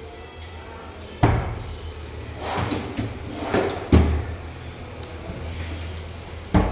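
Wooden furniture being handled, with three dull, heavy knocks about two and a half seconds apart, like cabinet doors or drawers knocking shut. Lighter wooden clatter falls between the second and third knock.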